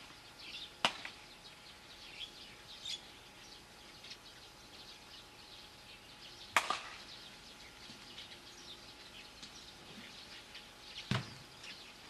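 Softball bat hitting the ball: three sharp cracks about five seconds apart, the middle one the loudest.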